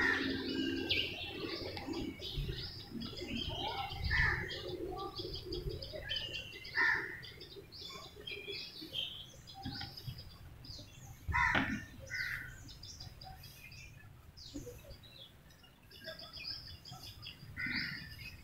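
Several birds chirping in the trees: many short, scattered calls, with a faint low drone under the first few seconds.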